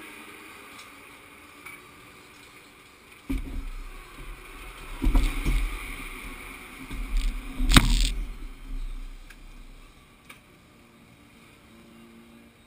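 Deep rumbling and bumping picked up through the camera mounted on the parked motorcycle as it is shifted, starting suddenly after about three seconds. There are two louder knocks, the sharpest near eight seconds in, and the noise dies away after about ten seconds.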